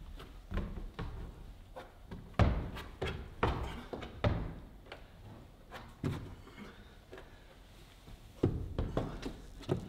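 Irregular thuds and knocks of a climber's hands and rubber climbing shoes hitting plastic holds and the wooden panels of an overhanging bouldering wall, the loudest about two and a half seconds in.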